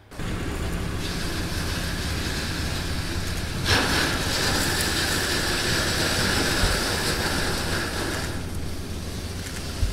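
Ineos Grenadier 4x4 engine running steadily as it drives off-road over gravel and through a muddy puddle. A loud rush of spraying water and grit comes in about four seconds in and eases off near the end.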